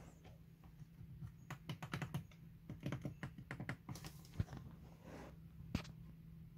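Handling noise while filming: a quick run of light clicks and taps from a hand and the phone, then two louder single knocks, over a steady low hum.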